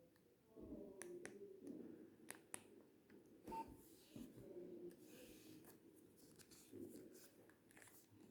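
Faint clicks of a Nokia 2610's keypad buttons being pressed as the phone is handled, with a brief keypad beep about three and a half seconds in.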